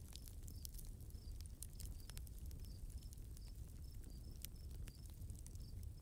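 Nature-sound ambience: a steady low rumble under scattered sharp ticks and patter, with a short high chirp repeating about two to three times a second.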